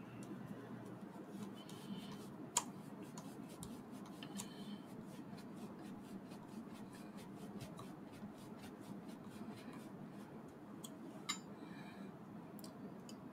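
Small screwdriver driving a screw into the metal and plastic skull and jaw of a Terminator T-800 model kit: a run of faint, evenly spaced clicks, about three or four a second, with a sharper tick about two and a half seconds in and another near the end.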